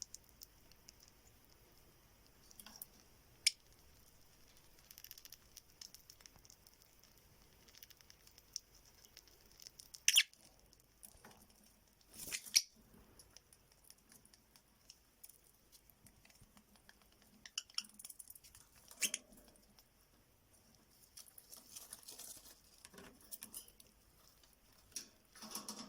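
Fischer's lovebirds moving about, making faint scattered scratching, clicking and tapping sounds, with a few louder sharp clicks near the middle.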